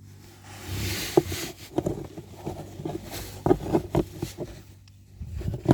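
Plastic car interior trim being handled and pressed into place: a short rustle, then a string of irregular clicks and knocks as the glovebox and its plastic screws are refitted.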